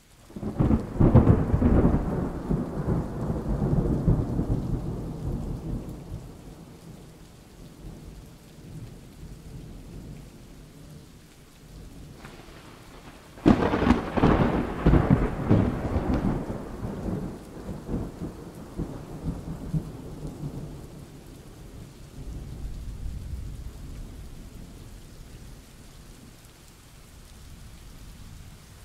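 Thunderstorm: thunder rolls over steady rain. A loud roll starts right at the beginning and fades over about six seconds, and a second sudden clap about halfway through rolls on for several seconds more.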